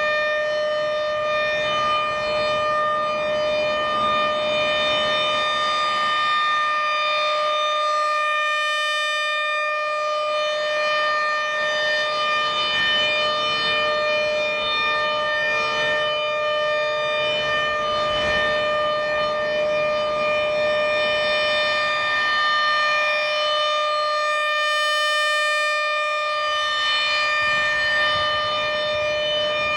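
ASC RM-130 mechanical outdoor warning siren sounding the steady alert signal: one loud, held tone with its overtones, the pitch not wavering.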